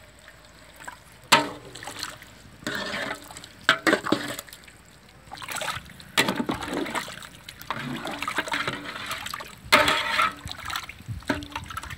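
A flat spatula stirring thick gravy in a large metal pot over a wood fire: the gravy sloshes and squelches in irregular bursts, with sharp knocks of the spatula against the pot about a second in, near four seconds and near ten seconds.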